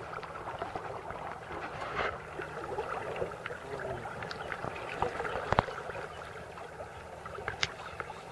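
Flowing river water, with scattered small clicks and knocks from handling; one sharp knock a little past halfway is the loudest.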